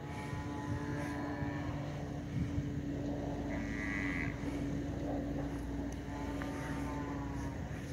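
Wind rumbling on the phone microphone over a steady low hum. Faint drawn-out cattle calls come from the fighting bulls three times: near the start, about halfway, and near the end.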